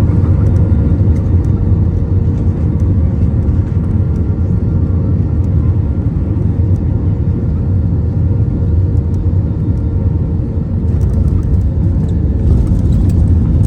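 Cabin noise inside an Airbus A320 on the ground after landing: a loud, steady low rumble of the engines and airframe, with a faint steady tone that fades out near the end.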